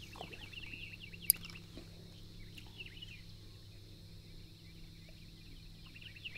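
A dense chorus of many short, high chirping calls from marsh wildlife, overlapping all the way through, over a faint low steady hum. A single sharp click stands out about a second in.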